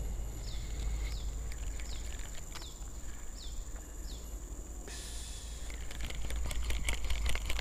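Tropical swamp ambience: a steady high insect drone, with a short falling chirp repeated about twice a second until about four seconds in. A brief hiss comes about five seconds in, over a low rumble.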